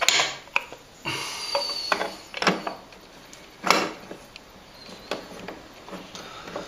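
Stand mixer's metal dough hook being fitted onto the attachment shaft: scattered metallic clicks and knocks, the sharpest a little under four seconds in.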